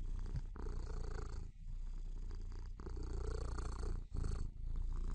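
Kitten purring, a low rough pulsing that comes in stretches of about a second with short breaks between them.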